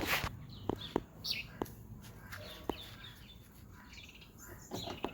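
A few short bird chirps, each falling in pitch, over scattered sharp clicks.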